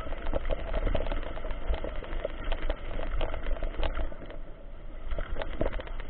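Mountain bike riding over a rough dirt trail: a steady clatter of rattles and knocks from the bike, with a low rumble of wind on the microphone.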